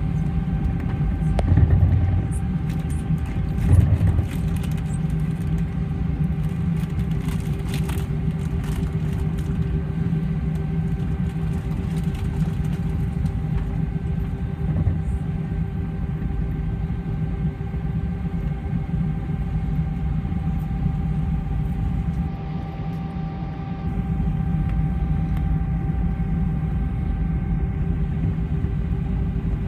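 Airbus A320 cabin sound during taxi: the engines' steady low rumble with a constant whine. Two dull thumps come in the first four seconds, and the sound dips slightly about 22 seconds in.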